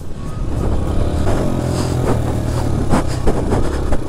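Dirt bike engine running under throttle on a rough dirt track, with several sharp knocks about a second in and again near three seconds.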